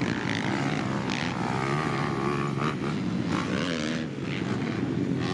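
Dirt bike engine being ridden hard, its revs rising and falling in pitch.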